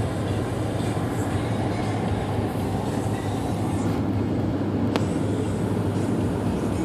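Steady low rumble of road and engine noise heard from inside a moving car's cabin, with a single light click about five seconds in.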